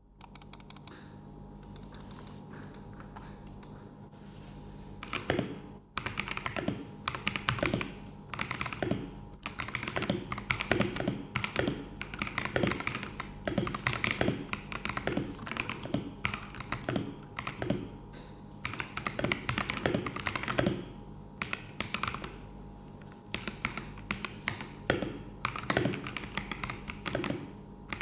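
Typing on an MK68 mechanical keyboard kit with stock, unlubricated Fantasy Virus switches, a foam-lined case with PE foam under the PCB, and Akko ASA-profile keycaps. Light, sparse keystrokes at first, then fast runs of typing from about five seconds in, broken by short pauses, over a steady low hum.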